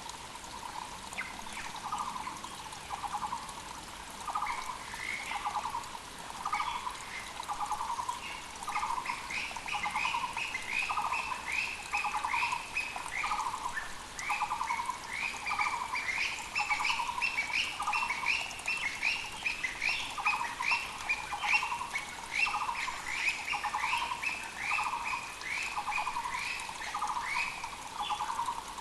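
Muller's barbet calling, an evenly repeated note about once a second, with a second bird's faster run of short falling chirps, higher in pitch, joining about eight seconds in. A mountain creek rushes steadily underneath.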